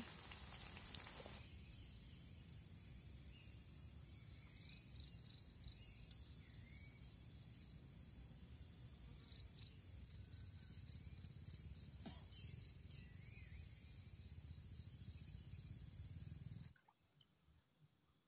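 Sausages sizzling in hot oil in a frying pan for about a second. Then a quiet, steady high-pitched insect trill, with a run of pulsed chirping at about four a second partway through. It cuts off abruptly near the end.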